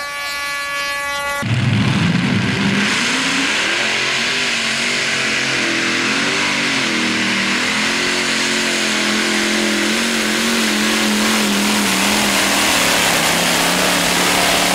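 A multi-engine modified pulling tractor with open exhaust stacks running flat out under load as it drags the sled, its engine note wavering up and down and easing slightly lower later on. For the first second and a half there is a steady high whine before the engine sound cuts in.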